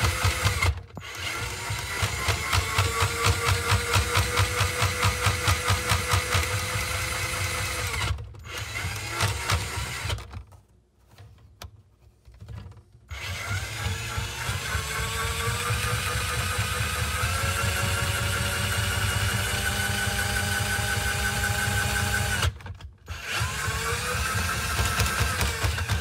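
Ryobi 18-volt ONE+ drain auger's motor running in reverse, winding its cable back into the drum, with a rapid pulsing. It stops four times, the longest for about three seconds, and its pitch climbs slowly each time it starts up again.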